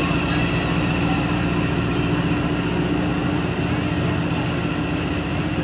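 Diesel-electric locomotive engine running steadily under load as the train pulls out, a constant low hum with a fixed whine above it.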